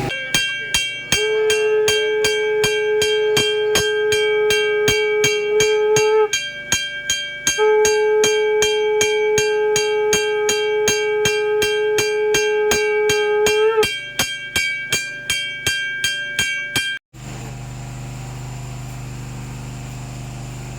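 Temple bell rung in fast, even strokes, about three a second, its ringing tones held throughout. Two long conch blasts of one held pitch sound over it, each rising slightly at its end. Everything cuts off abruptly about 17 seconds in, leaving a low steady hum.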